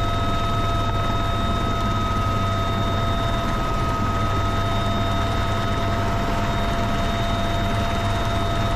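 UH-1Y Venom helicopter in flight, its twin turboshaft engines and rotors running steadily, heard from inside the cabin by the open door: a constant high whine over a low rumble.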